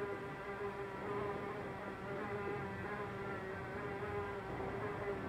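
A housefly buzzing in flight around a room: a continuous wing drone whose pitch wavers slightly as it moves, over quiet room tone.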